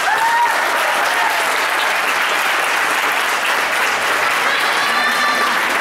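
Audience applauding steadily, with a voice calling out at the very start.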